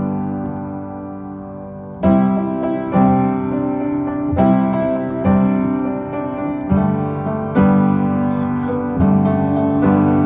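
Background music: an instrumental passage of piano or electric piano chords, struck about once a second.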